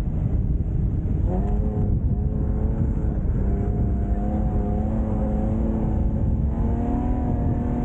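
Nissan Pathfinder R50's engine running under load off-road, its pitch rising about a second in and then holding fairly steady with small climbs, over a heavy low rumble.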